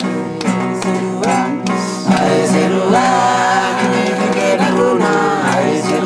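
A song: voices singing over a strummed acoustic guitar with a steady beat.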